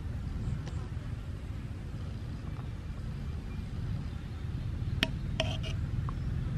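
A steady low rumble, with a few light clicks about five seconds in.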